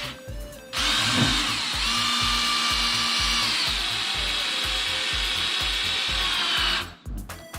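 Cordless drill driving a screw into wood, running steadily for about six seconds before stopping; its whine drops in pitch about halfway through. Background music with a steady beat underneath.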